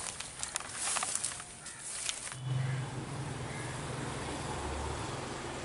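Light rustling and short clicks. About two and a half seconds in, a steady low engine hum starts abruptly and keeps running.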